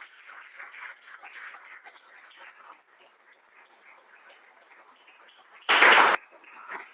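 Faint audience applause that dies away over the first few seconds. Near the end comes a sudden loud burst of noise about half a second long.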